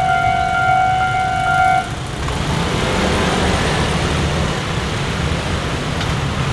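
A long, steady horn tone over the low rumble of a running vehicle; the horn stops about two seconds in and the rumble goes on.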